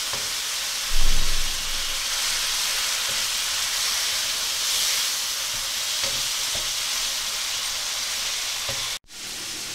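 Chicken pieces sizzling as they fry in oil and masala in a nonstick wok, stirred and turned with a spatula. A thump about a second in is the loudest moment, and the sound cuts out briefly near the end.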